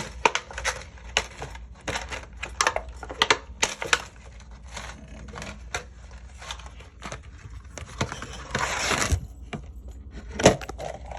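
Hands opening the plastic package of a new Korky 3-inch toilet flapper: a run of small clicks and taps, a rustling crinkle about nine seconds in, and a sharp knock near the end.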